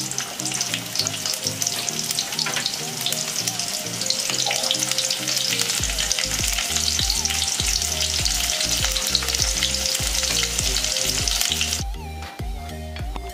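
Chopped onion and garlic sizzling loudly in hot oil in an aluminium kadai as the tempering (tadka) begins. The sizzle dies down abruptly near the end. Background music with a steady beat runs underneath, with bass coming in about halfway.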